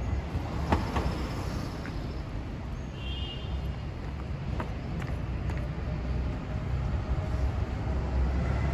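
City street ambience: a steady low rumble of traffic with a few sharp clicks and a brief high chirp about three seconds in. The rumble swells a little near the end.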